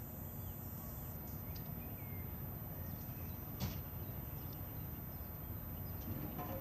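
Outdoor ambience: a steady low rumble with a few faint bird chirps, and a single sharp click about three and a half seconds in.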